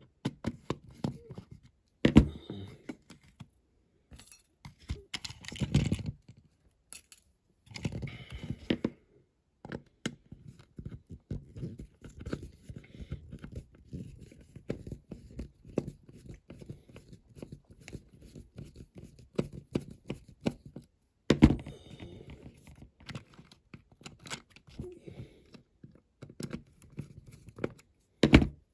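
Screwdriver turning out the base screw of a diecast toy London taxi, with the model handled in the fingers: a long run of small scrapes and clicks, and a few louder knocks.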